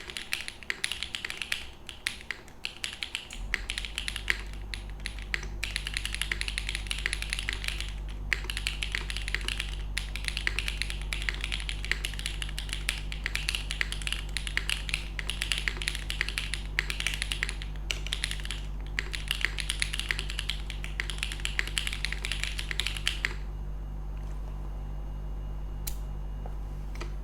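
Typing on a Phoenix TKL mechanical keyboard with lubed Owlab Neon linear switches, a polycarbonate plate, no case foam and GMK keycaps: a dense stream of keystroke clacks that stops about 23 seconds in. A low steady hum comes in about three seconds in and continues.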